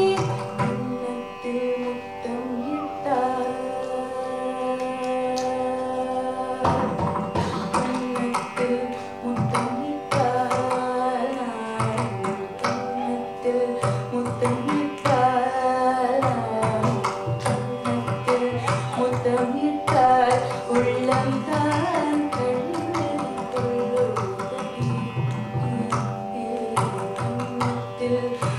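Carnatic vocal music: a woman sings ornamented, gliding phrases over a steady drone. The mridangam joins about seven seconds in and keeps up quick strokes under the voice.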